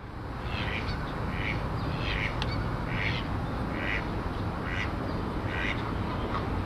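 Waterfowl calling over and over, short similar calls at a bit more than one a second, over a steady low rumble.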